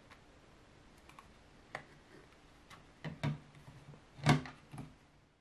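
Scattered small plastic clicks and knocks from hands plugging cable connectors into the 3D printer's stepper motor and handling its screen unit. The clicks grow louder toward the end, with the strongest knock about four seconds in.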